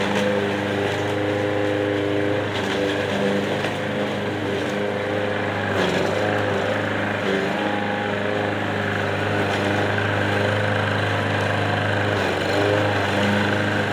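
Lawn mower's small petrol engine running steadily, its note wavering a few times.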